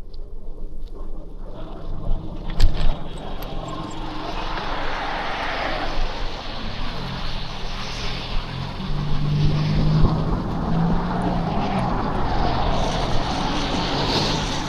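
City motor traffic passing close by: a steady engine drone that builds over several seconds, with a low hum in the second half and a sharp click early on.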